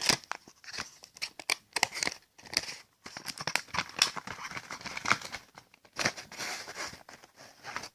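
Toy packaging being torn open and handled: irregular crinkling, crackling and tearing of the plastic and card packing.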